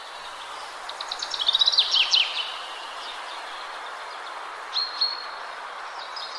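Small songbird singing: a quick run of high chirps and trills about a second in, a short call near five seconds, and more chirping near the end, over a steady outdoor background hiss.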